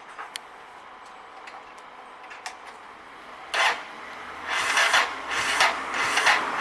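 A few faint clicks, then the electric starter of a Yamaha SRX600 single-cylinder engine cranking it from about three and a half seconds in, with a rhythmic rasping beat of about two to three pulses a second.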